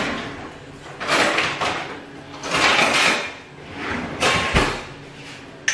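A kitchen drawer pulled open and rummaged in, with a few scraping, rattling bursts and a dull thud about four and a half seconds in.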